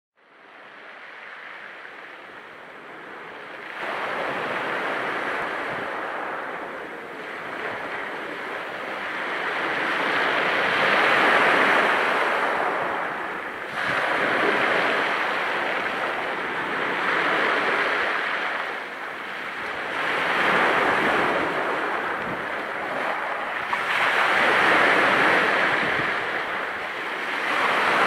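Small waves breaking on a pebble beach, each one washing up and draining back through the stones with a rattle of tumbling pebbles, in surges every few seconds. It starts faint and is louder from about four seconds in.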